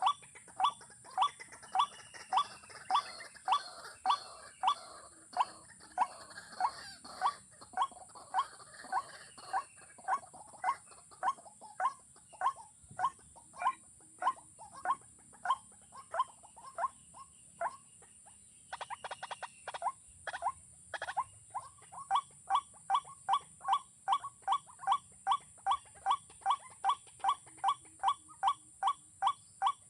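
Waterhen call: one short note repeated very evenly about twice a second, breaking off briefly about two-thirds of the way through for a quicker rattle of clicks before resuming. A steady high hiss runs underneath.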